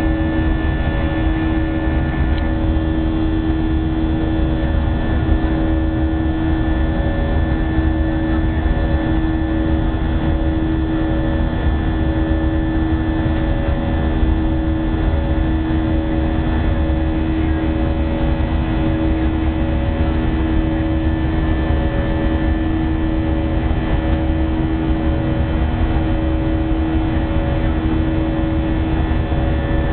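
Cabin noise inside an Airbus A319-132 in its climb: the steady drone of its IAE V2500 turbofan engines and rushing air, with a steady hum and a higher tone that pulses about once a second.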